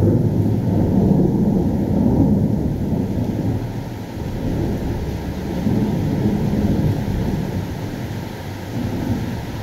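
Thunder rumbling, a deep rolling roll that swells and fades in waves and dies down toward the end.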